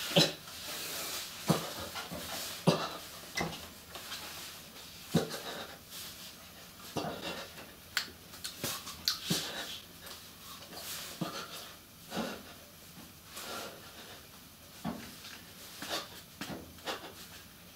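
A person gasping and gagging in short, irregular breaths.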